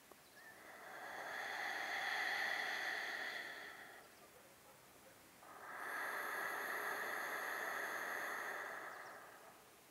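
A person's deep, slow breathing close to the microphone: two long breaths of about four seconds each, with a short pause between, paced by a yogic breathing exercise.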